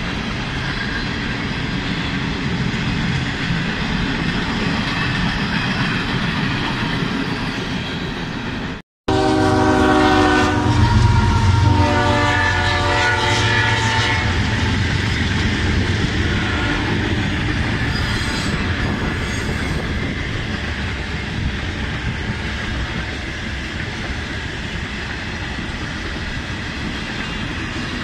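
Freight cars rolling past with a steady rumble and clickety-clack of the wheels over the rail joints. About nine seconds in, after a very short break in the sound, a diesel locomotive's horn sounds for four to five seconds over a heavier low rumble.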